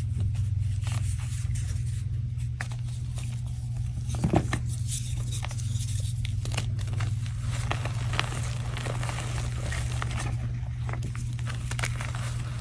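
A dry, pressed block of reformed gym chalk being snapped and crushed by hand. It gives a louder crack a little after four seconds as it breaks, then dense crunching and crackling as the pieces crumble into soft powder.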